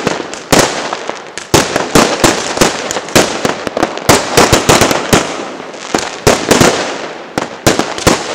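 Fireworks going off in quick succession: an irregular string of loud sharp bangs, several a second, with crackling between them.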